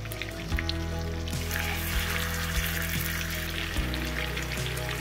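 Background music over the sizzling of marinated chicken thighs frying in hot oil and butter; the sizzling grows louder a little over a second in as more pieces go into the pan.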